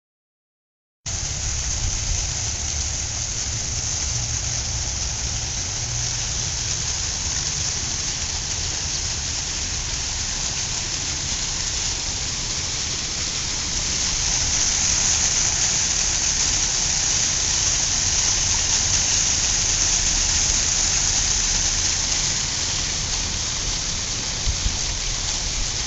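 Artificial waterfall fountain: water cascading over concrete rocks into a small pond, a steady rushing hiss that starts about a second in and grows a little louder about halfway through.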